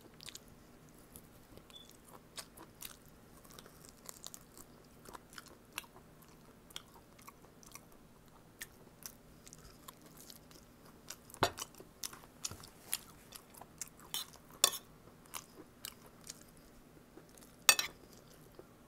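Close-up chewing and gnawing of stewed pork meat off the bone: soft wet mouth clicks and bites, with a few sharper, louder clicks in the second half.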